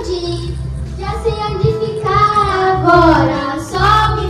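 Girls singing into karaoke microphones over a karaoke backing track, their held notes bending in pitch above a steady bass beat.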